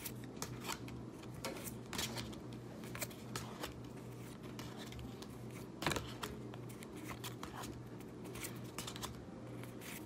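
Magic: The Gathering trading cards being flipped from hand to hand, an irregular run of light card snaps and slides with the sharpest snap about six seconds in, over a steady low hum.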